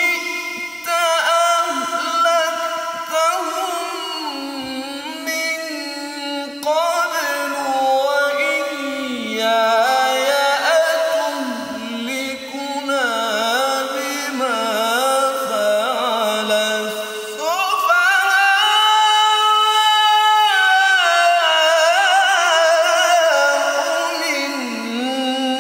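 A male qari reciting the Qur'an in the melodic tilawah style, in long ornamented phrases with winding, sliding pitch. About two-thirds of the way through he climbs to a louder, higher passage and holds it for several seconds before coming back down.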